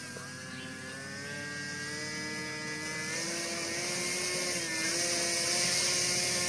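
Radio-controlled model airplane's motor and propeller running, a steady buzz that gradually rises in pitch and gets louder as the throttle is opened.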